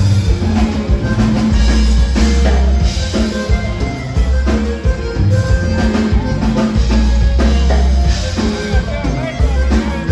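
A live conjunto band playing loud dance music, with drums and bass carrying the beat, heard across a crowded dance hall.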